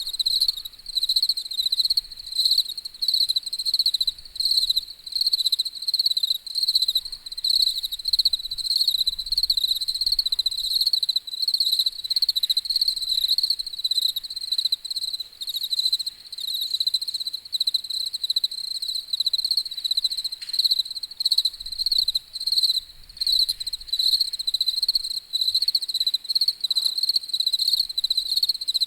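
Cricket chirping: a high, shrill pulsed trill repeating in quick bursts without letup.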